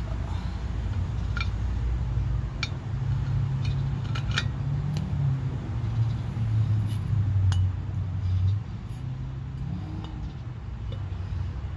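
Light metallic clinks and taps, a dozen or so scattered irregularly, as a steel V-belt pulley and its parts are handled and fitted onto the tiller's mule drive, over a low steady rumble that swells about two-thirds of the way through.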